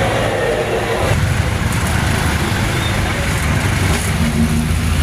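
A motorcycle engine running, with a deeper steady tone coming in near the end.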